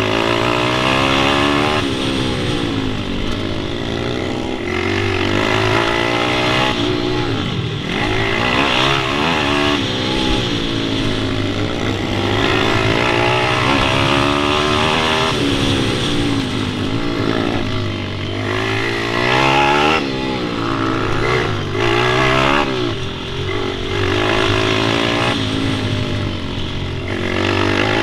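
A pit bike engine revving up and falling back over and over as the bike accelerates, shifts and slows around the track. Under the sweeping revs runs a steady low hum.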